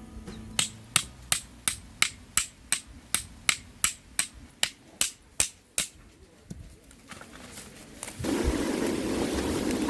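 A run of about fifteen sharp, evenly spaced clicks or knocks, roughly three a second, then a steady rushing hiss that starts suddenly near the end.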